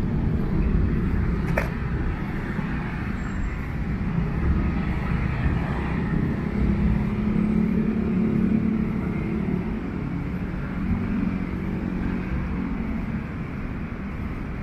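Road traffic: cars passing with a steady rumble. A heavier vehicle's engine tone builds and then fades between about six and twelve seconds in, and there is a single sharp click about a second and a half in.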